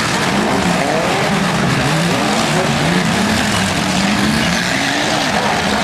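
Demolition derby cars' engines revving, their pitch swinging up and down again and again over a loud, steady wash of noise.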